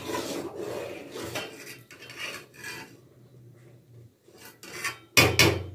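Kitchen items being handled at a shelf and utensil rack: irregular rasping and rubbing, with a few louder scrapes and clatters about five seconds in.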